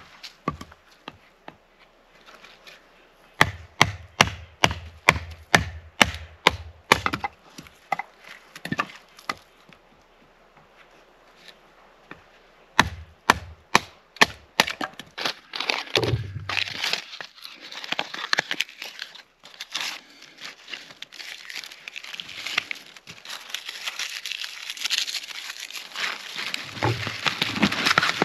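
Wood being chopped: a quick run of sharp woody knocks, about two or three a second, then a shorter second run. After that comes a denser crackling and rustling of wood being handled or broken.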